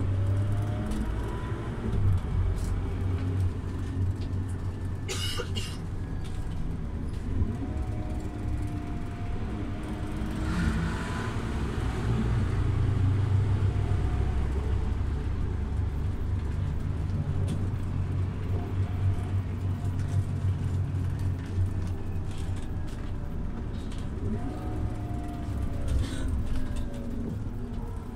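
Scania OmniLink CK270UB city bus running, its engine a steady low drone. A whine rises and falls several times as the bus speeds up and slows down. There is a brief hiss about five seconds in.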